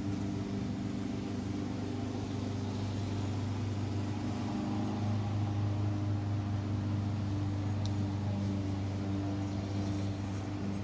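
Lawn mower engine running steadily, a low droning hum that swells a little in the middle.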